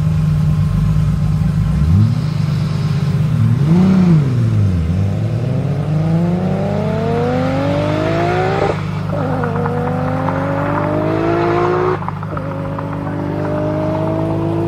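Turbocharged 1000 hp Audi TT revving at the start line, then launching and pulling hard away, its engine pitch climbing steadily with two upshifts about nine and twelve seconds in. A steady low engine hum holds underneath.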